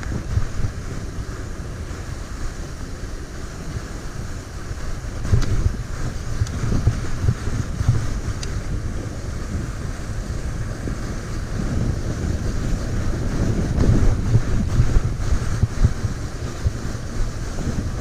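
Wind buffeting the microphone of a handlebar-mounted camera on a fat-tire e-bike riding along a packed snow trail: a steady, uneven low rumble with no voice. It gets louder about five seconds in and again around fourteen seconds.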